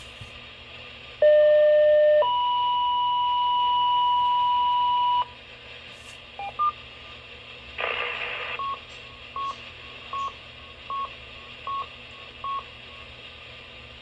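Electronic tones from a radio receiver: a loud low tone about a second in, then a steady higher tone held for about three seconds. Later comes a short burst of static, then six short beeps about three-quarters of a second apart.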